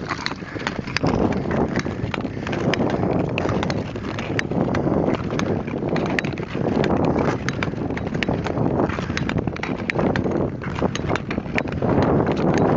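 Ice skate blades scraping and cutting across rough natural lake ice in repeated strokes, with many sharp clicks and crackles from the blades on the scratched surface.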